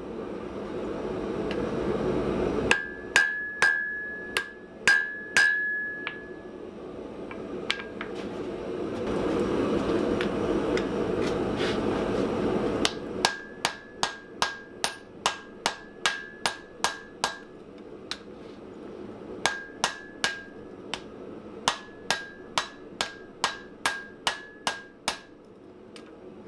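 Hand hammer striking hot steel on an anvil while a small hammer head is forged, in three runs of ringing blows at about two a second. A steady rushing noise fills the pauses between runs.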